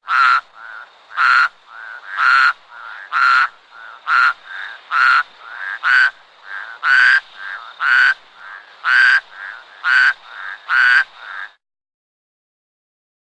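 Toad calling in quacking croaks: a loud croak about once a second, each followed by a softer one, stopping shortly before the end.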